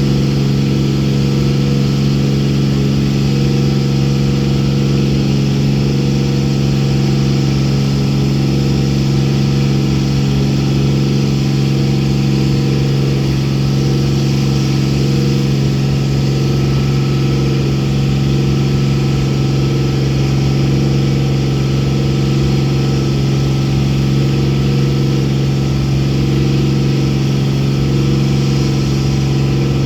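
A boat's engine running steadily at an even, unchanging pitch.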